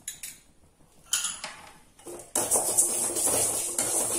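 A perforated metal ladle clinks lightly against an aluminium kadai. From about two seconds in it scrapes steadily around the pan, stirring dry-roasting split moong dal that rattles against the metal.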